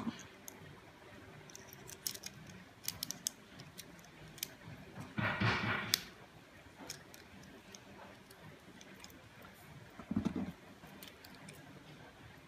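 Scattered small clicks and taps from handling a digital caliper during a battery change, with a brief scraping rustle about five seconds in and a short low thump about ten seconds in.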